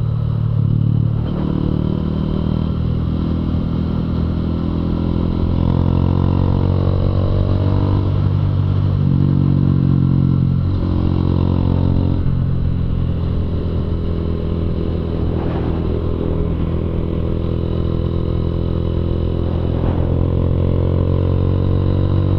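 Single-cylinder four-stroke engine of a Honda CG Fan 150 motorcycle running through a Fortuna Mini Trioval aftermarket exhaust while riding. The engine note rises and falls several times with the throttle, over steady wind and road noise.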